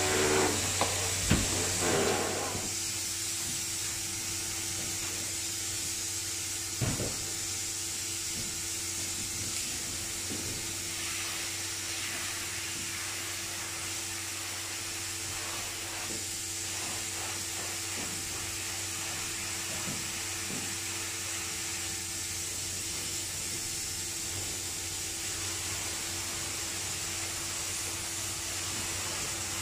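Spray foam gun hissing steadily as 2 lb closed-cell foam is sprayed onto the ceiling, over a steady low hum. There are a couple of knocks, one near the start and one about seven seconds in.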